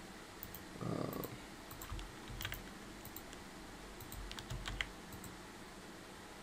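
Scattered light clicks of a computer mouse and keyboard being used at a desk, with a brief muffled sound about a second in.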